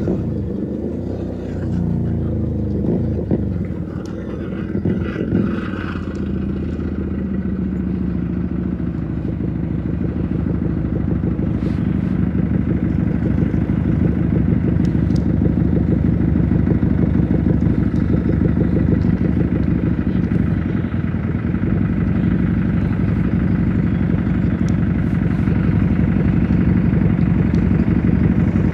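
Keeway SCR 250 motorcycle with a Rez Speed aftermarket exhaust, heard while riding: a deep, mellow exhaust note. It changes pitch through the first several seconds as engine speed varies, then settles into a steady cruise that slowly grows louder.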